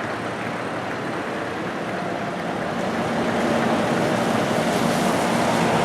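Crowd applauding outdoors, a steady wash of clapping that swells a little partway through.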